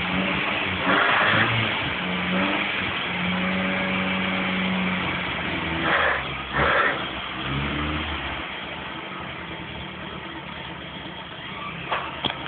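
Car engine running with a garden hose stuck in its tailpipe, the exhaust blowing out a loud hissing spray of water and vapour. The engine note rises and falls during the first eight seconds, with sharper gushes about a second in and twice around six and seven seconds. After that the hiss settles quieter.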